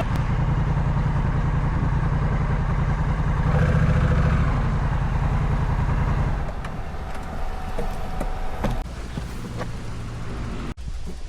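Honda Rebel 1100's parallel-twin engine running, a steady low drone that eases off to a quieter rumble about six and a half seconds in.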